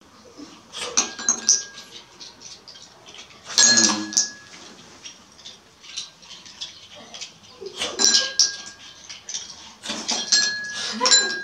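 Metal spoons clinking and tapping against ceramic bowls: a series of sharp clinks with short ringing, the loudest about four seconds in and more around eight and ten seconds in.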